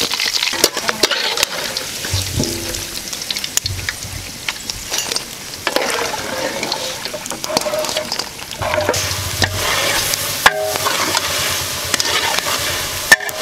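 Hot oil sizzling as jackfruit pieces deep-fry in a steel wok, with a metal slotted ladle scraping and clinking against the wok and the steel bowl. Later comes the sizzle and scrape of a long ladle stirring in a large cooking pot.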